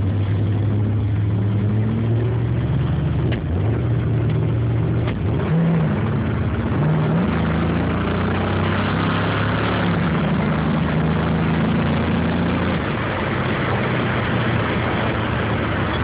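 1968 Chevrolet Camaro's V8 accelerating away from a stop, heard from inside its cabin. The pitch climbs, drops briefly about three and a half seconds in as it shifts, rises again, then holds steady at cruising speed over road noise.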